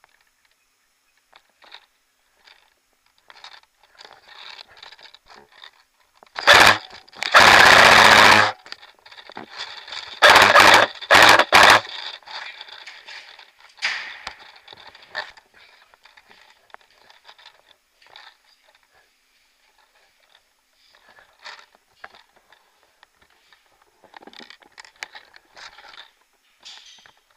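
Airsoft guns firing: one long burst of rapid fire a few seconds in, then three short bursts a couple of seconds later. Between them are scattered rustles and footsteps.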